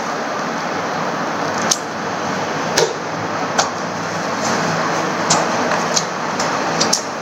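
Steady background hiss with a handful of short, sharp clicks and taps scattered through it, from a paper booklet and a small cardboard watch box being handled.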